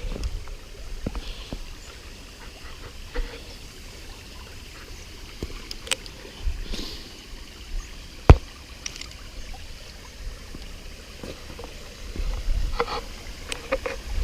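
Small upland waterfall and stream running steadily, with the low flow that leaves it not much of a waterfall. Scattered sharp clicks and knocks sound over it, the loudest about eight seconds in, and a low rumble of wind on the microphone builds near the end.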